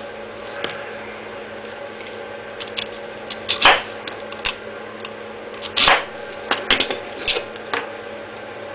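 Utility knife blade cutting through the abrasive cloth flaps of a grinder flap disc, trimming away the worn part of the sandpaper: scattered short scrapes and clicks, with two louder, longer cuts around the middle.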